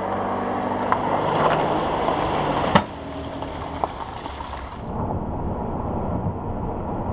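A car engine running steadily while towing a boat trailer up a launch ramp, broken by a sharp click under three seconds in. Then steady road and wind noise from a moving car.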